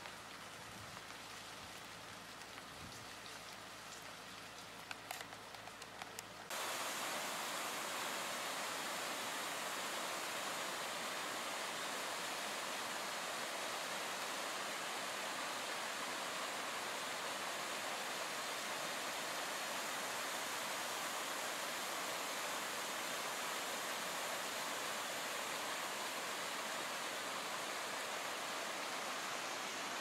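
Rain falling steadily, a soft hiss with a few scattered drop ticks. About six seconds in it cuts abruptly to a louder, even rushing hiss.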